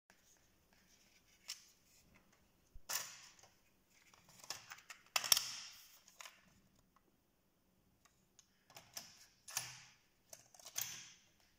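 Irregular plastic clicks and short rattles of a cassette being handled and loaded into a Denon DR-M10HX cassette deck, its cassette door snapping open and shut; the loudest clatter comes about five seconds in.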